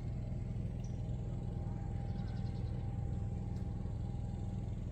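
An engine running at a steady speed: a low, even hum.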